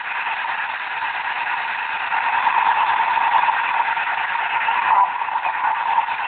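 Receiver hiss and static from a CB radio's speaker while it is tuned across the 11-metre (27 MHz) band with no station coming through, with a faint steady tone in the noise.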